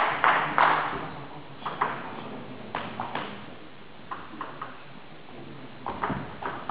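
Table tennis ball being struck by rackets and bouncing on the table in a rally: sharp clicks at irregular intervals, some in quick pairs or triples, with a wash of hall noise fading over the first second.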